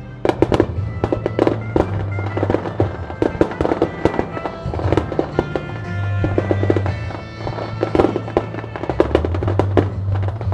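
Display fireworks going off in a rapid barrage: many sharp bangs and crackles, several each second, over music played for the show.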